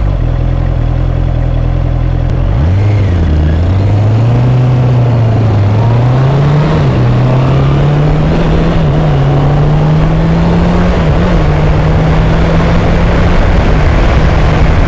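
Honda CBR650R's inline-four engine under way on the road, its note climbing slowly as the bike gathers speed, with a few brief dips along the way.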